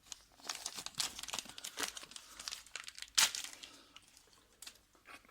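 Plastic packaging crinkling and rustling as it is handled, with one sharp click a little after three seconds in.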